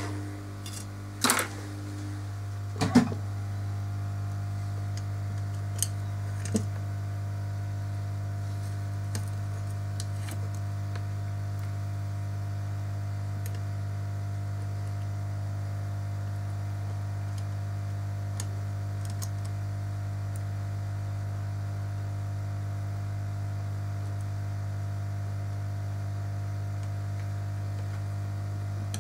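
Steady low electrical hum, with a few sharp clicks and taps in the first seven seconds.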